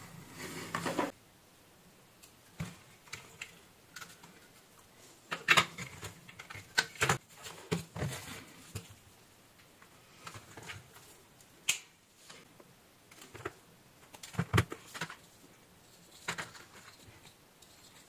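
Hands handling and twisting insulated hookup wires and a circuit board on a bench: irregular small clicks, taps and rustles. A brief scraping rustle comes in the first second, and there are busier clusters of clicks in the middle and about three-quarters of the way in.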